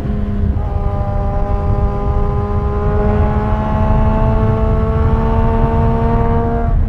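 Sport motorcycle engine pulling hard at highway speed, its pitch climbing steadily as it accelerates in gear, then dipping briefly near the end at an upshift. Heavy wind rumble on the microphone underneath.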